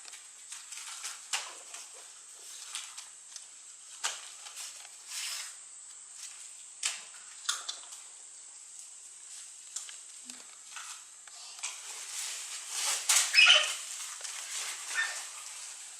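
A cinereous vulture rummaging and pecking at lotus-leaf enrichment: irregular rustles, scratches and clicks, growing busier and louder about twelve to fourteen seconds in.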